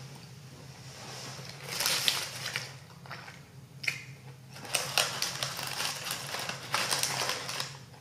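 Paper fast-food wrapper and fries bag crinkling in several bursts as a hand digs in and pulls out fries, over a steady low hum.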